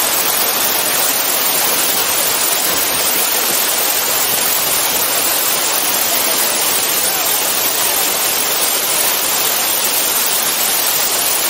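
Steady, loud rush of falling and splashing water.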